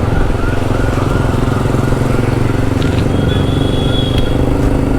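TVS Apache RTR 160 4V's single-cylinder engine running steadily through an Akrapovic full-system exhaust with the dB killer fitted, the bike cruising on the road. A thin high tone sounds briefly about three seconds in.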